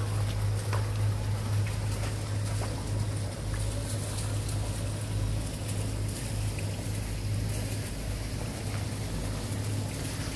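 Steady low hum of boat machinery running, with an even hiss of wind and water over it.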